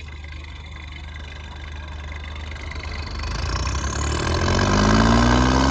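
Tractor diesel engine revving up under load at the start of a tug-of-war pull. It rises in pitch and gets louder from about halfway in.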